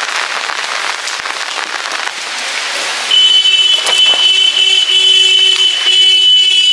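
Steady rain hiss. About three seconds in, a loud, steady high-pitched tone joins and holds to the end, with a sharp click about four seconds in.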